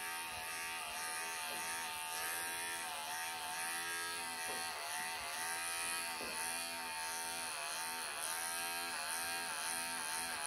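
Electric pet clippers buzzing steadily as they cut through a Persian cat's tightly matted, pelted coat. The hum dips in pitch briefly now and then as the blade meets the dense mats.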